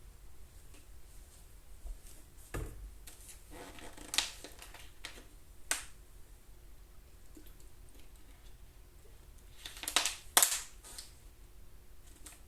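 Scattered clicks and knocks of small objects being handled, a few spread through the first half and the loudest pair close together about ten seconds in.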